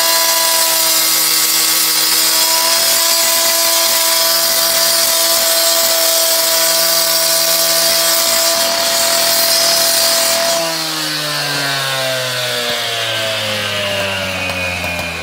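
Gas-powered cut-off saw dry-cutting a concrete paver, its two-stroke engine held at a steady high pitch under the grinding hiss of the blade. About ten seconds in, the throttle is let off and the engine pitch falls as it slows toward idle.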